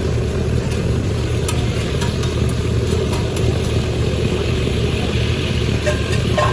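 A steady low mechanical rumble with a faint hiss over it and a few light clicks scattered through.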